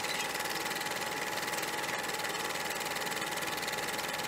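Film projector running: a fast, even mechanical clatter under steady hiss, with a thin steady whine.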